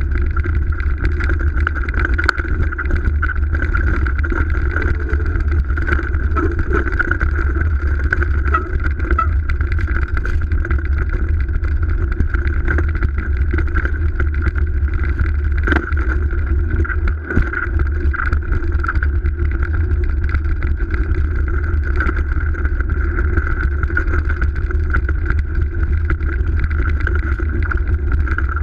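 Steady, loud rumble and hum of a GT DHI downhill mountain bike rolling fast over a snowy forest trail, picked up by a camera mounted on the front fork, with scattered short knocks from bumps in the trail.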